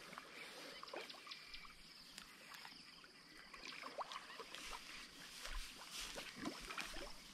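Faint rustling with scattered small ticks, and soft low thuds of footsteps on grass in the second half.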